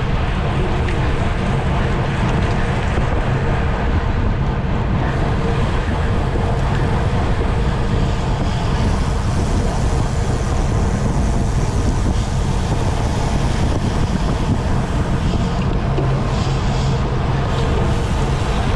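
Steady rush of wind on the microphone with a low road rumble, from a racing bicycle riding at speed.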